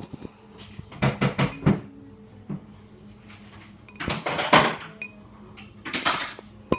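Kitchen clatter: four quick knocks about a second in, then two longer rattling clatters, the first around four seconds in and the second around six seconds in, with a sharp click at the very end.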